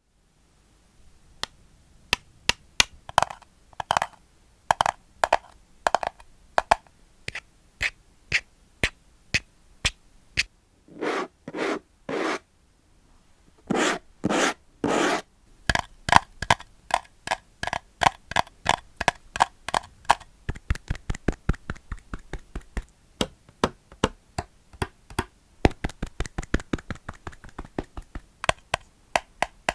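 Close-up ASMR tapping and scratching on hard plastic: a string of sharp taps, a few longer scratching strokes about halfway through, then quicker, denser tapping toward the end.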